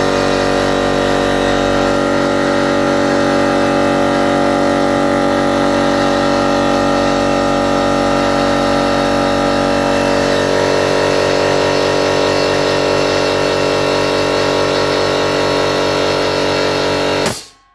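50-litre ALDI air compressor running steadily as it pumps up its tank, with a fast piston beat under a steady drone, then cutting off suddenly near the end.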